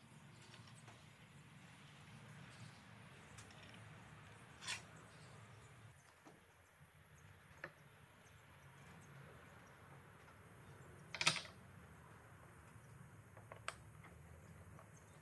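Quiet handling of wooden boards and a bar clamp on a worktable: a few short, sharp knocks and clicks, the loudest a quick cluster about eleven seconds in, over faint room hiss.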